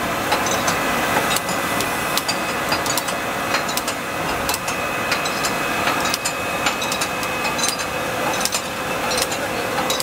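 Rotary glass-bottle filling and ROPP capping monoblock running: a steady mechanical hum with a constant whine, and frequent irregular sharp clicks and clinks as glass bottles move through the starwheels.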